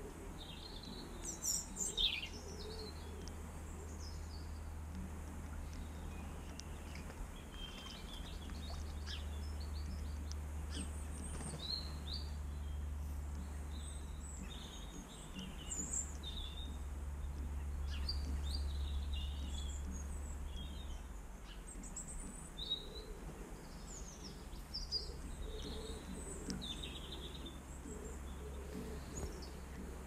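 Small garden birds chirping and singing in short scattered calls and trills, the loudest about two seconds in, over a steady low rumble.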